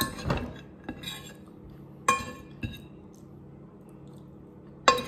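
Metal fork clinking and scraping against a ceramic plate while noodles are scooped up, with sharp ringing clinks about two seconds in and again near the end.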